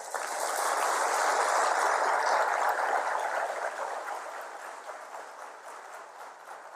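Audience applauding, coming in suddenly, then slowly dying away over several seconds.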